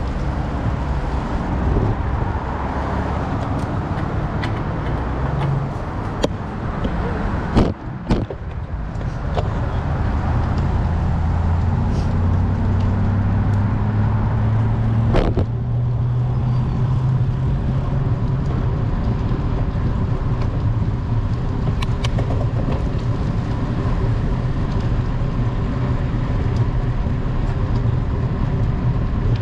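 Road traffic noise heard from a moving road bike: cars passing, with a steady low hum through the middle and a couple of sharp clicks, one about a quarter of the way in and one about halfway.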